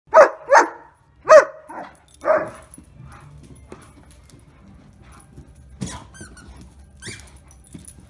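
Irish wolfhound barking, about five deep barks in the first two and a half seconds, the second and third the loudest. Afterwards only quieter knocks and scuffles while the dog plays.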